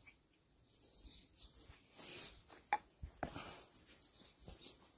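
Faint bird chirping: short, high, falling chirps in quick pairs, about a second in and again near four seconds. A couple of sharp knocks come between them.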